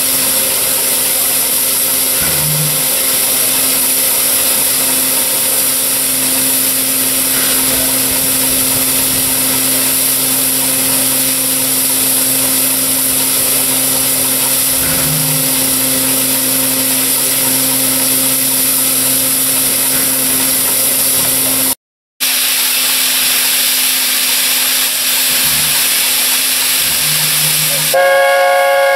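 A standing A4 Pacific steam locomotive, No. 60009 Union of South Africa, hissing steadily with a low hum under it; about a second before the end its chime whistle opens up in a loud chord of several notes.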